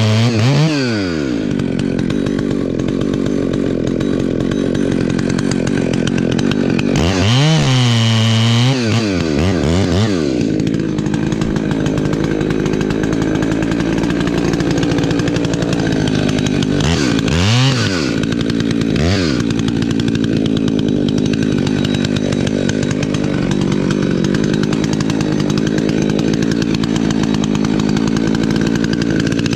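Two-stroke chainsaw running at high revs, cutting into the base of a thick tree trunk to fell it. Twice, around 7 and 17 seconds in, the revs drop sharply and then climb back, and between those dips the saw runs steadily under load.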